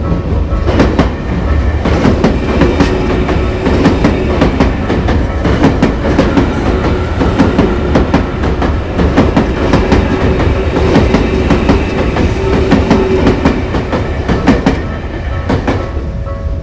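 Tokyu Meguro Line electric commuter train passing close by a level crossing, its wheels clacking in quick succession over the rail joints above a steady rumble. It eases off near the end as the train clears.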